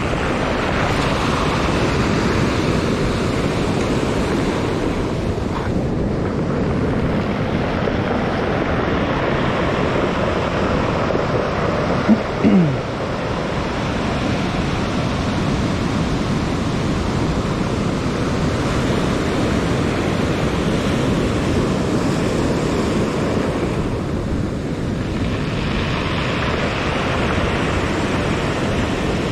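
Surf breaking and washing up a pebbly shore, with wind buffeting the microphone. A brief, louder sound with a short falling tone comes about twelve seconds in.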